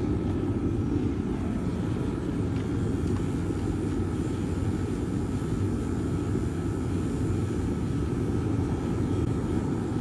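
Forced-air burner of a homemade clay-and-perlite furnace, fed air by an air compressor, running steadily with a low rushing noise and a faint steady whine above it.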